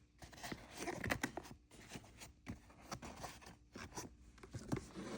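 Faint, irregular rustling, scraping and small clicks of a fabric tool bag and its pockets being handled.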